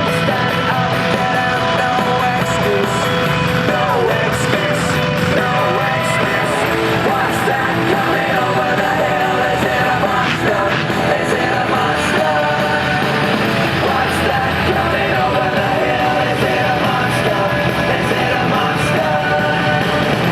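Loud rock music with singing, played over an arena public-address system.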